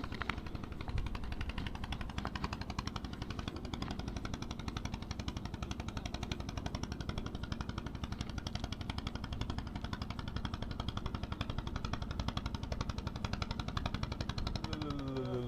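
Small engine running steadily with a rapid, even knocking beat and a low hum.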